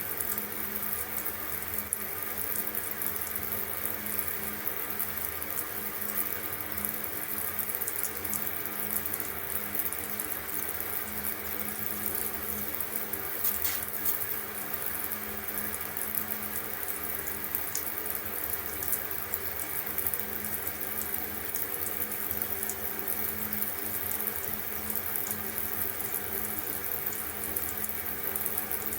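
Water running in a steady, unbroken stream.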